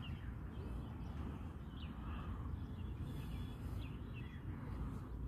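Outdoor ambience: a steady low rumble with scattered faint bird chirps.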